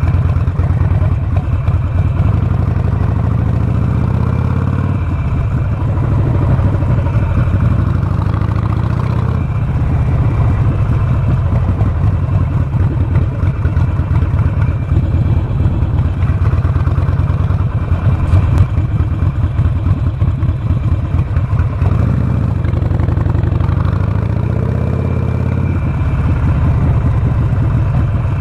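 Harley-Davidson Sportster 48's air-cooled 1200 cc V-twin running at low road speed, heard from the rider's seat. Its pitch rises and drops back a few times as the bike pulls away and eases off.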